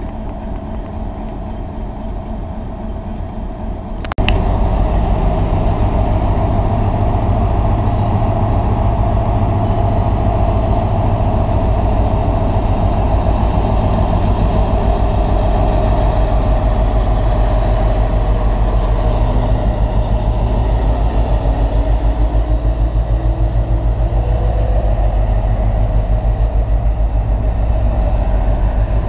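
Class 60 diesel freight locomotive's Mirrlees eight-cylinder engine running under load as it hauls a freight train slowly past, growing suddenly louder about four seconds in. Near the end the wagons roll by behind it.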